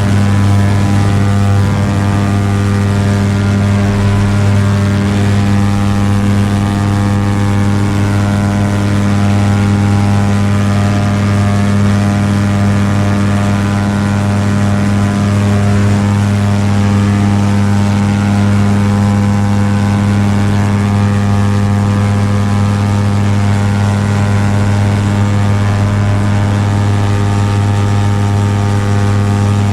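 Paramotor engine and propeller running at a steady throttle in flight, a loud, even drone that holds one pitch.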